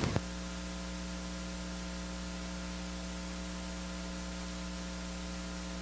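Steady electrical mains hum with hiss: a low, even buzz with a ladder of overtones that does not change.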